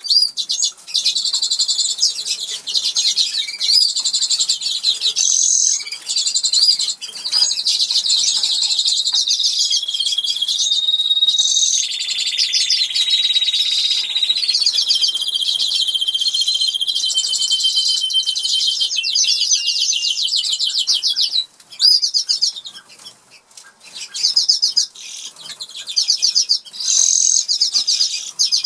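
Norwich canary singing: a long, unbroken run of fast trills and rolls mixed with held whistled notes, dropping away briefly about three quarters of the way through before picking up again.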